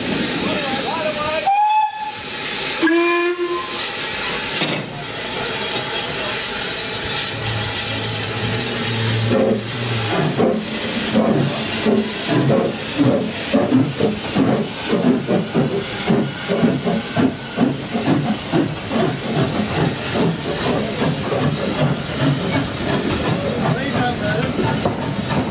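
Two steam locomotive whistles sound in turn over steady escaping steam, first a higher note and then a lower one: the exchange between the two engines of a double-headed train before it leaves. About ten seconds in the locomotives start away, their exhaust beats getting quicker as the train gathers speed.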